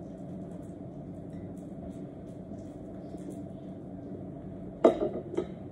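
A steady low background hum. About five seconds in there is one sharp clink of dishware, followed by a couple of lighter taps.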